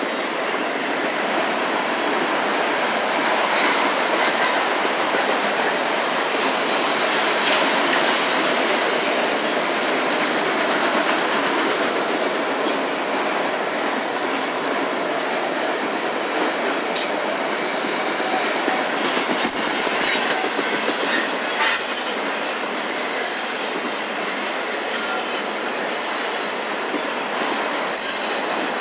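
Autorack freight cars rolling past with a steady rumble and rattle of wheels on rail. Short high-pitched wheel squeals cut in now and then and come more often and louder in the second half.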